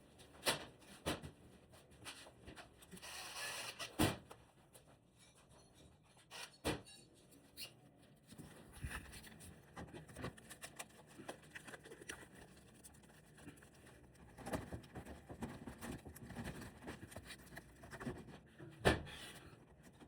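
Scattered knocks and clicks with some rustling and scraping in between, the sound of objects being handled and moved about.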